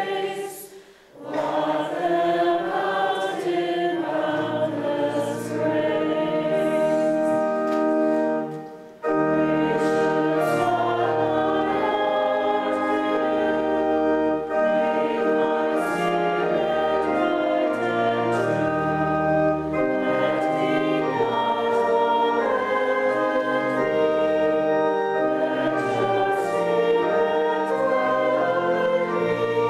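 Congregation singing a hymn with instrumental accompaniment in the church. The singing breaks off briefly about a second in and again just before nine seconds; after that, deep held bass notes join under the voices.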